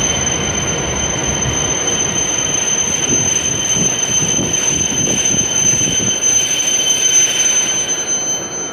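E7-series shinkansen train slowing into a station platform, with rumbling running gear and a steady high whine. The whine and rumble die away near the end as the train comes to a halt.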